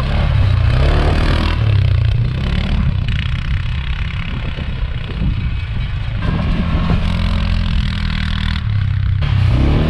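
A vehicle engine running close by, its pitch shifting as it revs up and down.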